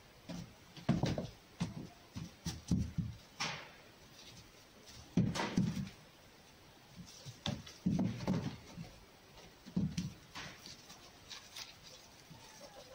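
Irregular thumps and scuffling as a red fox scrambles and pounces about a straw-covered floor, playing with a tennis ball; the knocks come in clusters about a second apart, with short quiet gaps.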